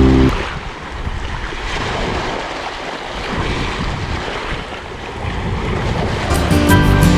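Sea waves washing on the shore, with wind noise on the microphone. Music cuts off just after the start and comes back in near the end.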